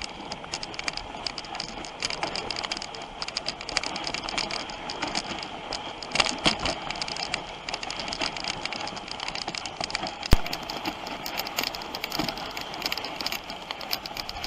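Dog sled running over a snow trail: a steady hiss of the runners on snow with constant light rattling and clicking from the sled, and one sharp knock about ten seconds in.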